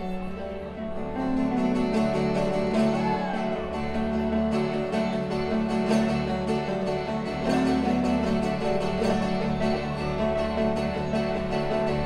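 A band playing live: strummed acoustic guitar over a steady bass line, with picked mandolin and electric guitar on top.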